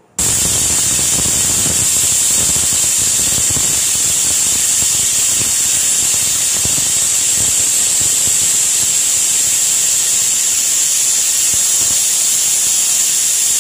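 Pressure cooker whistling: steam jets out past the weighted valve on its aluminium lid in one long, loud, steady high hiss that starts suddenly and stops abruptly. This single whistle is the cook's cue that the cooker is at full pressure and the meat is done, so the gas can be turned off.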